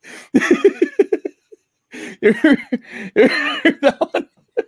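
Two men laughing at a joke's punchline, in rounds of short, repeated ha-ha pulses with brief pauses between.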